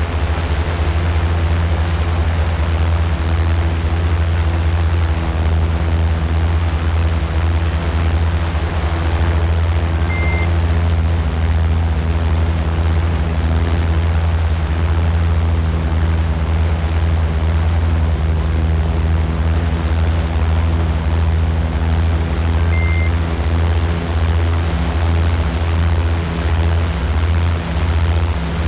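A drone's propellers and motors humming steadily in flight, with a slight pulsing near the end. Two short high beeps sound far apart.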